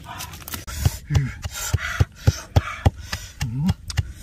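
Wooden pestle pounding chillies in a clay mortar: repeated dull thuds, about three to four a second, starting just under a second in.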